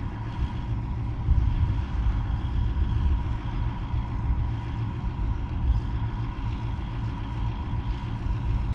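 Heavy vehicle engine running steadily with a deep rumble and a faint steady whine above it.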